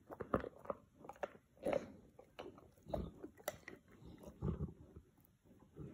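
A Boerboel chewing and gnawing on a chew, with irregular crunches and clicks of teeth on the chew and a few dull low thuds.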